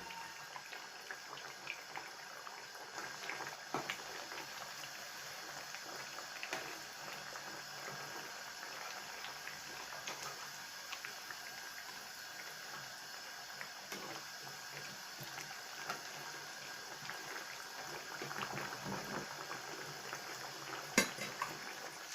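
Breaded, cheese-stuffed giant mushrooms deep-frying in hot oil: a steady sizzle scattered with small pops and crackles, and a single sharp tap near the end.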